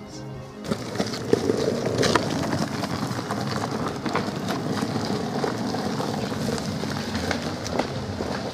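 Longboard wheels rolling over a rough, wet lane with leaves: a steady gritty rumble with scattered clicks and crackles, starting abruptly under a second in.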